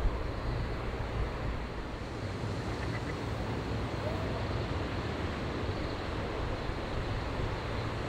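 Steady rush of running water, with a low wind rumble on the microphone.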